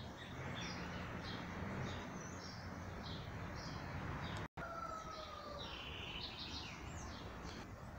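Garden ambience: small birds chirping again and again over a steady background hiss, with one short, slightly falling whistle just after the middle.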